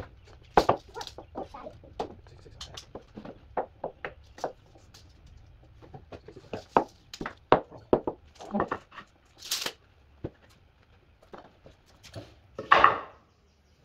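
Irregular clatter of short wooden knocks and clicks as offcut blocks of lumber are picked up and set down on the concrete floor and a tape measure is worked across a frame, with a brief hiss about two-thirds through and a louder burst near the end.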